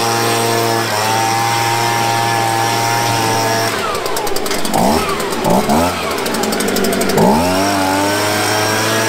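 Handheld gas leaf blower running at steady high throttle; in the middle its engine drops off and revs back up several times before holding steady again.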